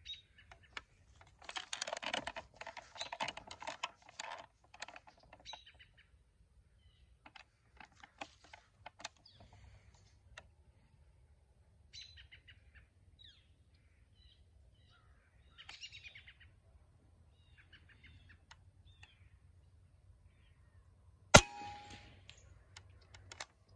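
Birds chirping now and then, with scattered faint ticks. About 21 seconds in comes a single sharp, quiet crack: one shot from a .25-calibre air gun.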